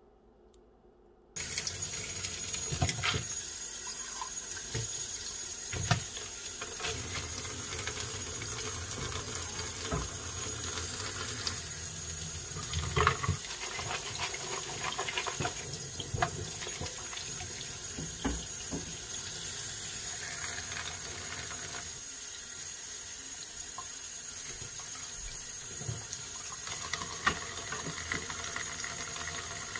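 Kitchen tap running into a stainless steel sink, water splashing over vegetables in a plastic colander as they are rinsed by hand. The water starts suddenly after about a second and a half of near silence, with occasional sharp knocks as the colander and food are handled.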